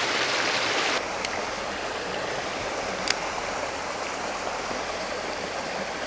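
Small mountain stream running over rocks and little cascades, a steady rushing of water that becomes slightly quieter about a second in. A faint click near the middle.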